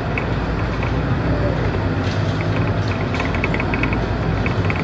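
Scania Kurb Euro 4 city bus's diesel engine running steadily while the bus cruises, with road noise, heard from inside the cabin. Light clicking rattles come and go throughout.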